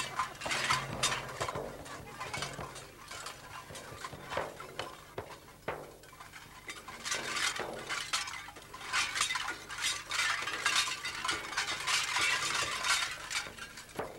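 Metal pendants on a Nanai shaman's ritual belt jangling and clinking in irregular bursts as the shaman dances, busiest in the second half.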